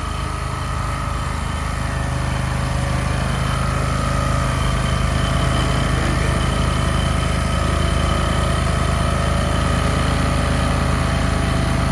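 Small engine of concrete-screeding machinery running steadily, with a faint high whine over the hum.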